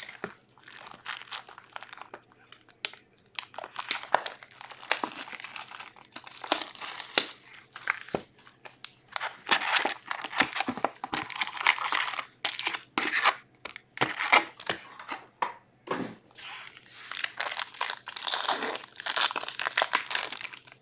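Hands unwrapping and opening a 2022-23 Skybox Metal Universe hockey card box: irregular crinkling and tearing of wrapping, with the box lid sliding off about ten seconds in. Near the end a foil card pack crinkles as it is torn open.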